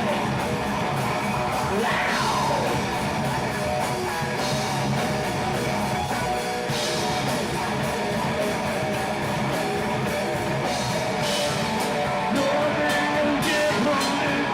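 A live heavy metal band playing loud, with distorted electric guitar and drums.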